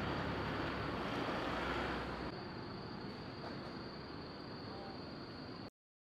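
City street traffic noise: a steady hiss and rumble of passing cars, easing off after about two seconds, with a thin steady high tone above it. It cuts off suddenly near the end.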